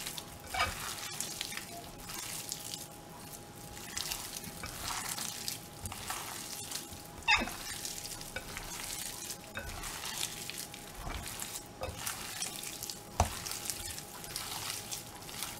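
Hands squishing and kneading thin slices of raw beef in a wet cornstarch-and-soy-sauce marinade in a glass bowl: a steady wet squelching with small clicks, and a couple of sharper taps about seven and thirteen seconds in.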